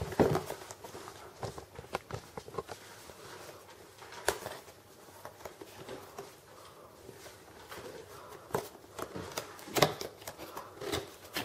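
Cardboard microphone box being handled and opened by hand: faint rustling and scraping broken by a few sharp taps and knocks, the loudest a little before the end.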